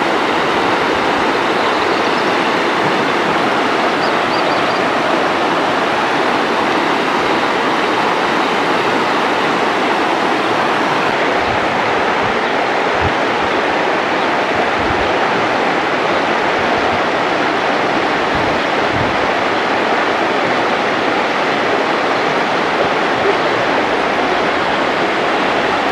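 Fast-flowing river water rushing steadily, a dense even roar of running water.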